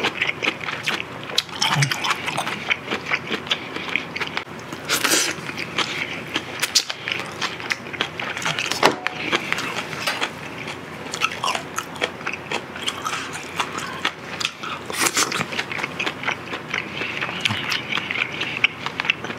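A person chewing a mouthful of food close to the microphone: a dense run of short wet smacks and clicks, on and off.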